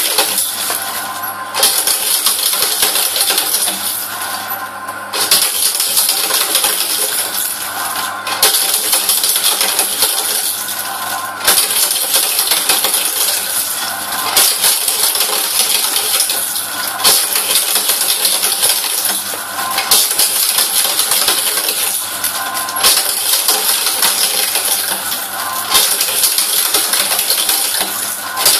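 Office paper shredder running, its motor humming under a dense, clattering cutting noise that surges in repeated cycles about every three seconds, each starting sharply.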